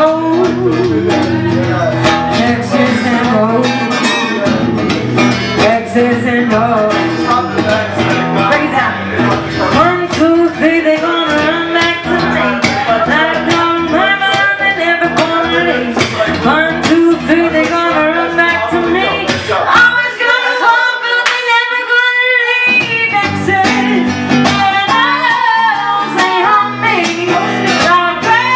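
A woman singing a song live into a handheld microphone, accompanied by an acoustic-electric guitar. Roughly two thirds of the way through, the guitar stops for a couple of seconds while her voice carries on alone, then it comes back in.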